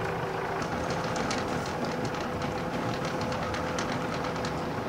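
Anchor chain running out from the yacht's anchor windlass, a quick rattle of clicks lasting about four seconds, over the steady running of the boat's engine.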